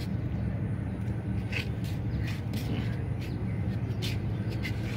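Water splashing and dripping in several short bursts as a wet fishing net is hauled by hand out of the river into a wooden boat, over a steady low hum.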